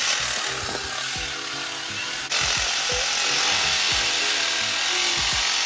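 Background music, with the whirring of a cordless power ratchet driving engine bolts mixed in. The level jumps suddenly a little over two seconds in.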